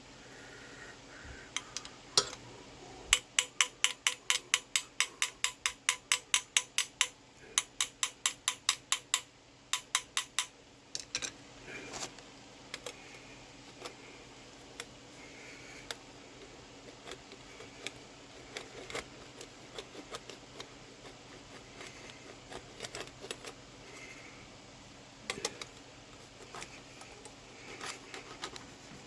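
Light, sharp taps on a brass trombone bell held on a mandrel, working out dents and rounding the bell. About three seconds in comes a quick, even run of some four taps a second, lasting about seven seconds, then scattered single taps.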